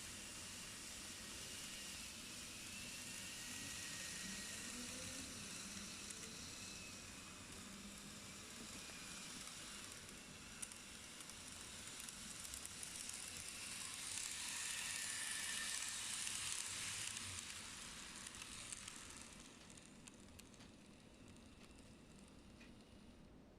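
N-gauge model of a 281-series Haruka train running along its track, a faint steady whirring rattle of motor and wheels. It swells as the train comes closest, about two thirds of the way through, then fades away.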